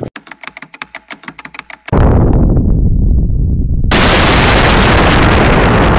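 Sound effects laid over an edited intro: a rapid run of sharp clicks, about ten a second, like typing. About two seconds in, a sudden loud boom fades away. About four seconds in, a loud steady hiss like static begins.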